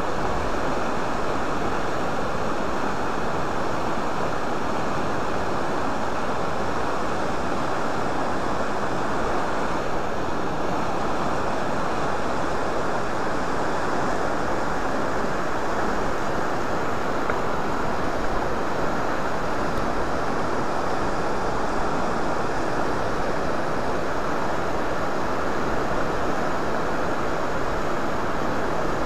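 Trout stream running high, rushing over rocky rapids and a riffle: a steady, even rush of water that does not let up.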